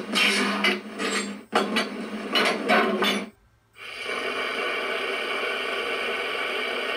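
Sound effects played through the speaker of the ESU sound decoder in an LGB G-scale Rhaetian Railway Ge 4/4 III electric locomotive, standing still: a rasping mechanical noise in several pulses with short breaks over the first three seconds, then, after a brief pause, a steady even noise that keeps running.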